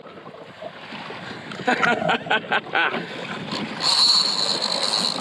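Sea and wind noise around a kayak, with a few short vocal sounds about two seconds in. About four seconds in a high, steady whine starts: a fishing reel's drag giving line as a hooked marlin runs.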